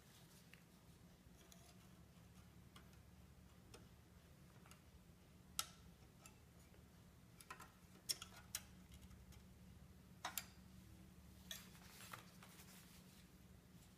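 A few faint, sharp clicks and ticks of a metal pallet knife and gloved fingers working against the lifting brass marquetry of a Boulle box lid, over a low steady hum.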